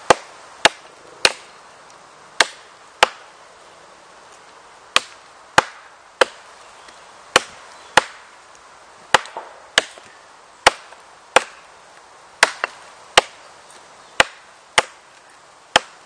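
Heavy fixed-blade survival knife chopping into a dry 10 cm log: about nineteen sharp wood-chopping strikes, roughly one a second, some in quick pairs with short pauses between.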